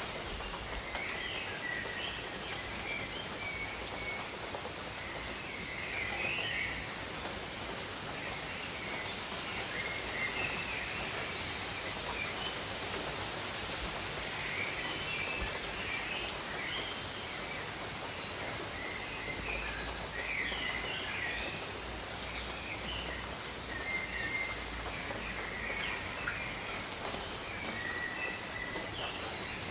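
Steady gentle rain falling on leaves, with small birds chirping and twittering in short phrases every second or two.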